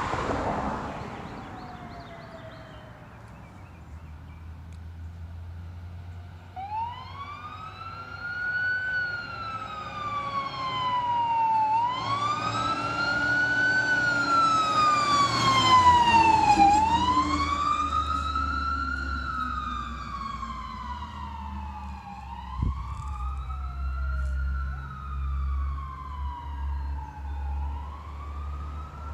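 Emergency-vehicle siren on a slow wail, starting about seven seconds in and rising and falling roughly every five seconds, over the low rumble of a vehicle on the road.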